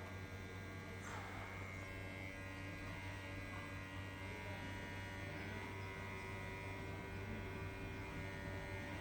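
Hot air rework station running steadily: a low hum with a faint high whine from its blower, heating the phone's board to desolder a part. A brief falling whistle about a second in.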